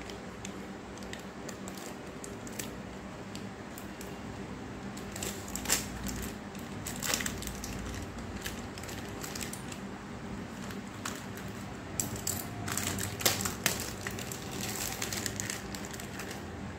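Foil-lined snack packet crinkling and crackling as it is peeled and torn off an omelette that has stuck to it. Irregular short crackles, thickest around five to seven seconds in and again from about twelve seconds.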